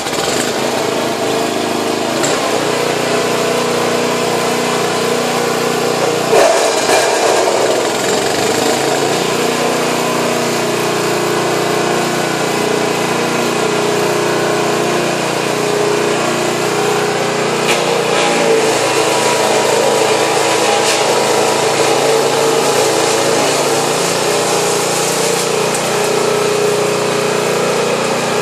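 Bearcat SC3305 chipper-shredder starting up and running steadily at full speed on its 305 cc OHV petrol engine, with branches fed into the hopper being chipped through it.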